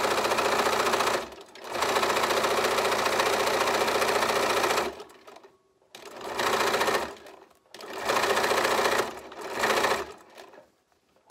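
Bernina electronic sewing machine stitching through a coiled fabric strip, run in spurts. It sews steadily, stops briefly about a second and a half in, runs again for about three seconds, then gives three short runs with pauses before stopping near the end.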